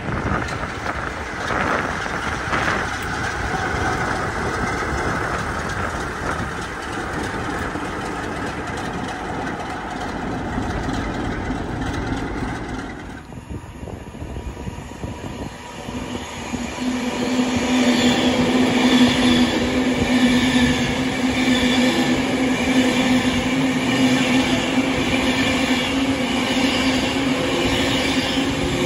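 Passenger trains passing through a station at speed. First comes the steady rumble and rail noise of passing Pullman coaches. After a sudden change partway through, electric trains pass with a steady humming tone that grows louder.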